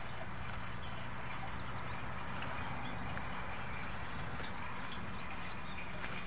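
Steady low hum over an even background hiss, with a few faint, brief high chirps about a second and a half in.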